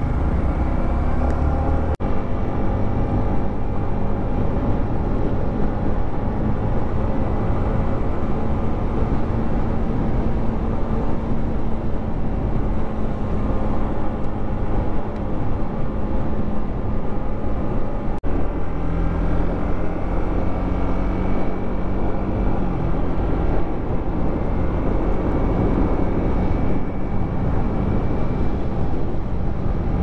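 Yamaha MT-15's single-cylinder engine running at a steady cruise, with wind and tyre noise on a wet road. The engine note jumps abruptly to a new steady pitch twice, near the start and a little past the middle.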